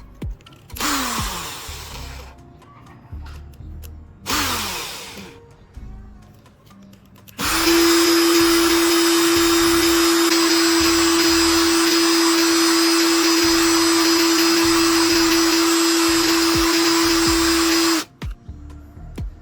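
Small electric motor tool, drill-like, run in two short blips that spin down with falling pitch, then run steadily at one speed for about ten seconds before stopping abruptly.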